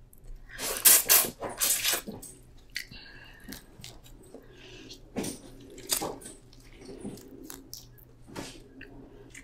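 Close-miked mukbang eating sounds: wet squishing, crackles and clicks of seafood being handled and eaten, with a few louder crackling bursts in the first two seconds.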